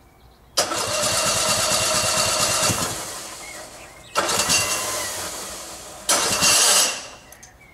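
Tecumseh engine of a ride-on mower tried three times in a row: each time it starts up suddenly, runs for a second or two and dies away, without keeping running. The first run is the longest, about two and a half seconds.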